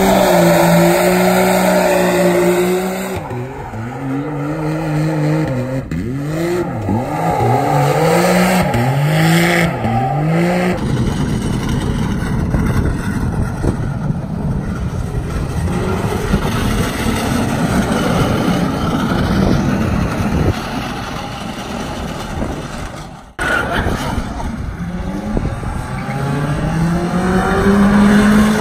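Engines revving hard during donuts: a side-by-side UTV's engine rising and falling in pitch about once a second, with tyre squeal. After about eleven seconds it turns to a steady noisy rush, and near the end a car's engine revs up again.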